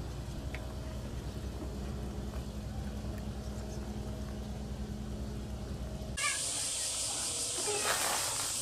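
Low steady hum of a moored ferry's diesel engine idling, cut off abruptly about six seconds in by a steady high-pitched drone of summer cicadas.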